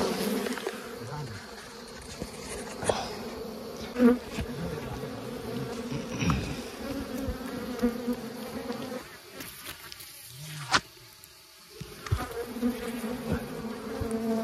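Wild honeybees buzzing close by in a steady drone. The drone drops away for a few seconds about nine seconds in and then comes back. A few sharp knocks cut through it, the loudest about four seconds in.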